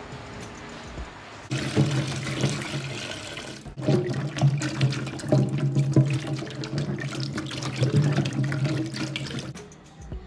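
Kitchen tap running into a stainless-steel sink while hands rub and turn okra in the water, splashing and knocking. The water starts about a second and a half in, breaks briefly, and stops shortly before the end.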